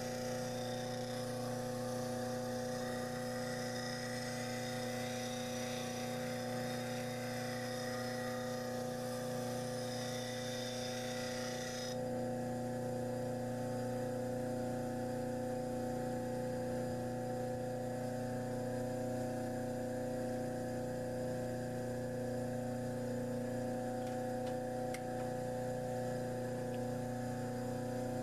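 Cement-mixer motor running steadily, belt-driving a sanding disc, while a steel spindle gouge is sharpened against the 120-grit sandpaper on the disc with a hissing grind. The grind stops suddenly about twelve seconds in as the gouge is lifted off, leaving the motor's hum.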